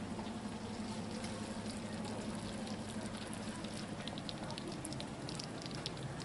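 Food simmering in slow cookers: faint scattered crackles and small pops over a steady low hum.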